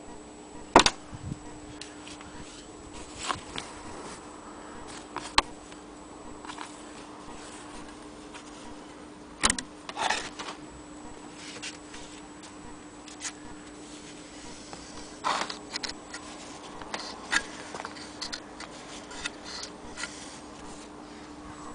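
Irregular clicks, knocks and fabric rustles as an antique Willcox & Gibbs chain-stitch sewing machine and the cloth in it are handled, over a steady low hum. The louder knocks come about a second in, about five seconds in, and around nine to ten seconds in.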